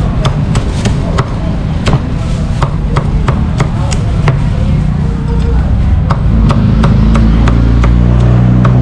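Cleaver chopping crispy pork, quick irregular strokes about two to three a second. A low engine hum from traffic underneath grows steady and louder about six seconds in.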